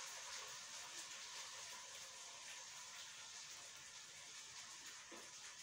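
Near silence: room tone with a steady faint hiss.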